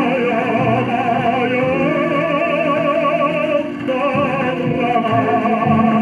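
Old Soviet-era song recording playing from a record on a vintage record player: a melody with wavering vibrato over orchestral accompaniment, thin-sounding with nothing above about 4 kHz.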